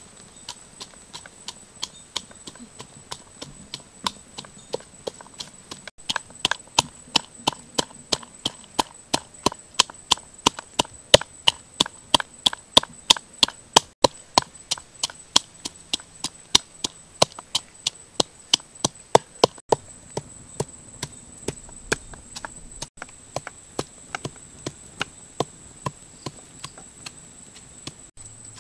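Red chillies being pounded in a small mortar: hard, evenly paced knocks, about three a second, faint at first, loudest in the middle and easing off near the end.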